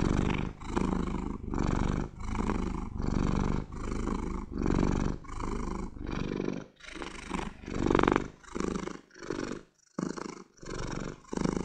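Domestic cat purring close up: a continuous low rumble that swells and dips with each breath in and out, in an even rhythm of a little over one swell a second, with one louder swell near the end.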